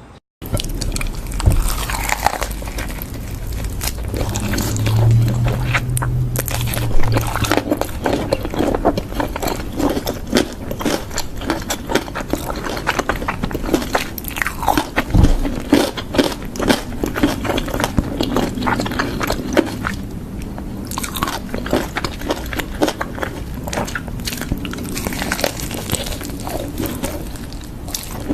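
Close-miked eating: crunchy bites and wet chewing, a dense irregular crackle of clicks going on throughout, with a short lull about two-thirds of the way in.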